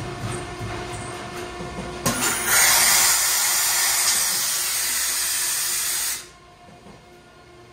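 Loud hiss of compressed air from a pneumatic vacuum lifter's suction pad, starting about two seconds in and cutting off suddenly about four seconds later. Before it there is a low machine rumble.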